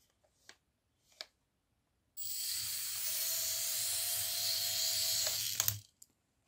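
Think Gizmos Gyro Zoomer mini RC helicopter's tiny electric motor whirring at full throttle, a high steady whine that starts suddenly about two seconds in and cuts off after about three and a half seconds with a couple of clicks. The helicopter spins on the table without lifting off, a fault the owner puts down to a split pinion gear slipping on the motor shaft.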